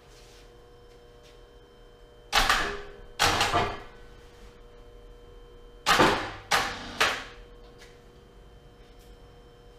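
Hands working on a bench-top arbor press make five short, harsh rasping noises, each dying away within about half a second: two a little under a second apart, then three more about half a second apart.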